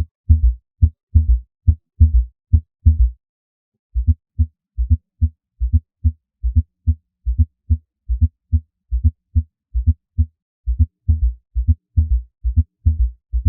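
Auscultated heart sounds with a gallop rhythm: each beat is a cluster of low-pitched thuds, the normal heart sounds plus an extra low-pitched sound in diastole (an S3 or S4 gallop). The beating breaks off briefly about three seconds in and resumes with a different spacing within each beat.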